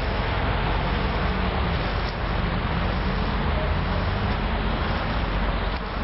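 Steady road traffic noise: vehicle engines running with a low hum under an even rush.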